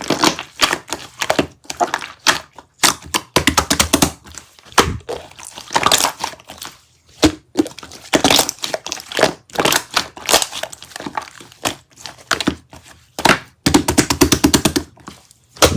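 Paper or thin plastic being crinkled and crumpled by hand, in irregular bursts of crackling with sharp taps and clicks in between.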